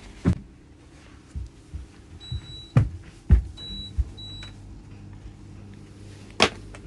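A chimpanzee thudding onto the floor as it jumps down from a couch, followed by a few more knocks and thumps of movement on the floor. Three short high electronic beeps sound in the middle, the last two close together.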